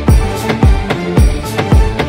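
Background music with a heavy electronic beat: a deep, booming kick drum about twice a second under jingling percussion, with no singing.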